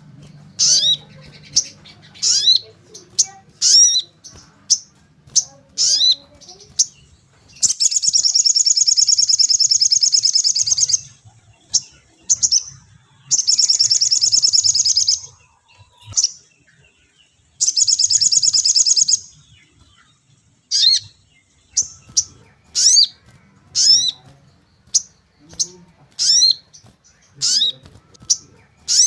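Sogon bird calling: sharp, high, falling "cuit" chirps about once a second, broken in the middle by three rapid trills of a few seconds each.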